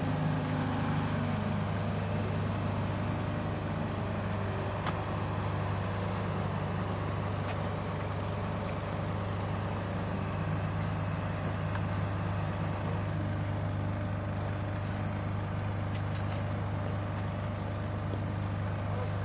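A mobile crane's engine running steadily at a constant speed, a low even hum that does not change.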